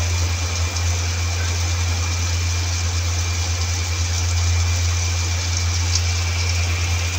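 A steady low motor hum, unchanging throughout, with an even hiss and a faint high whine above it.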